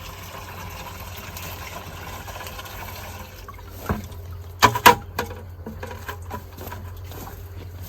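Water running, then stopping about three and a half seconds in, followed by a few sharp knocks, the loudest pair just before the five-second mark, over a steady low hum.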